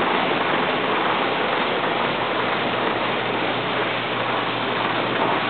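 Beans pouring through a 1925 Meyers elevator, a steady rain-like rush, with a low steady hum from the 3 hp electric motor driving it.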